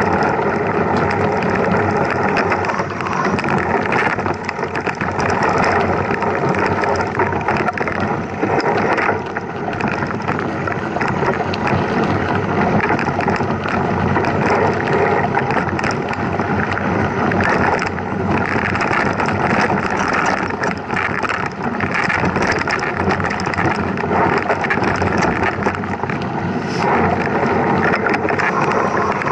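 Mountain bike being ridden over a rough trail: continuous tyre and rattling noise with many small irregular knocks, and wind buffeting the microphone.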